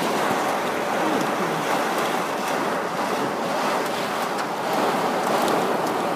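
Heavy rain hitting a car's roof and windshield, heard from inside the car: a dense, steady hiss with many small sharp drop hits.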